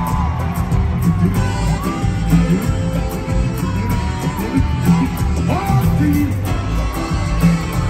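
Music with a heavy bass beat and a singing voice gliding over it.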